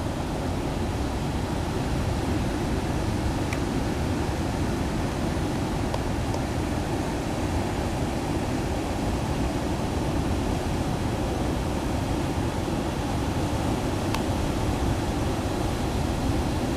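Steady rushing of strong wind and rough surf as a typhoon approaches the shore. The wind is heavy on the microphone, with no single wave crash standing out.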